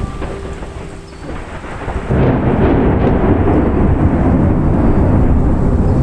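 Thunder with steady rain: a loud, deep rumble of thunder sets in about two seconds in and keeps rolling, over the hiss of the rain.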